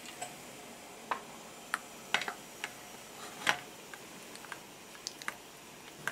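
Stainless steel bowl and silicone spatula knocking and tapping as a bowl of chocolate and butter is set over a pot of hot water and stirred. About a dozen sharp, scattered taps, the loudest about three and a half seconds in.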